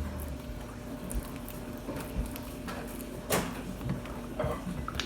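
Light handling noises of small objects on a tabletop: scattered soft taps and rustles, with one sharper knock about three and a half seconds in.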